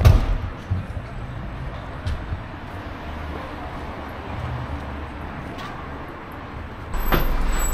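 Street traffic: a steady rumble of passing vehicles, with a sharp knock right at the start and the rumble growing louder near the end.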